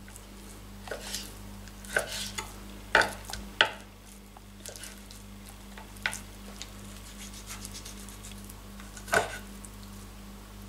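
Knife slicing raw meat into chunks on a wooden cutting board, the blade knocking against the board about six times, over a steady low hum. The meat is being cut into pieces small enough for the meat grinder.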